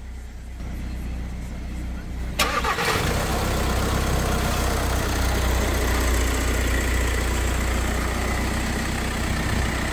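VW Crafter turbodiesel engine idling steadily, at first fainter, then much louder and closer with the bonnet open after a sudden change about two and a half seconds in.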